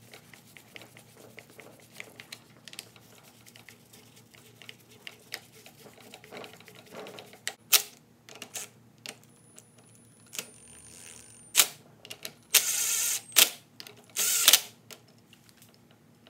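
Hand tools at work on clutch cover bolts: light metallic ticks and clicks of a screwdriver turning the screws, then a few louder clacks and two short rasping bursts near the end.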